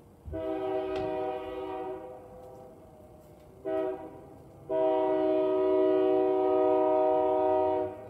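Diesel locomotive air horn sounding several notes at once as a chord: a long blast, then a short one, then a longer, louder blast.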